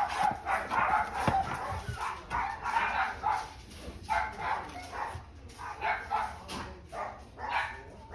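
Dog barking and whining repeatedly in short, high-pitched bursts, one or two a second.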